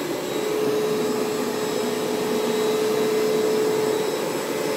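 Bissell ProHeat Pet Turbo upright carpet cleaner running steadily: a constant motor whine over the rush of its suction.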